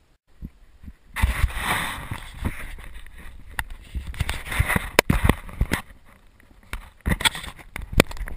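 Handling noise from an action camera being taken off and turned around in the hands: from about a second in, rubbing and scraping right on its microphone with a string of sharp knocks and clicks.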